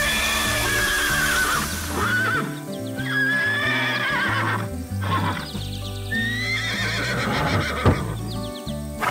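Horse whinnying three times, each call long and wavering and falling in pitch, over background music.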